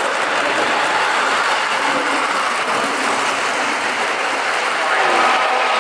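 Model train running past on its track: a steady whir and rumble of the locomotive's motor and the rolling wheels of the cars. A steady tone comes in near the end.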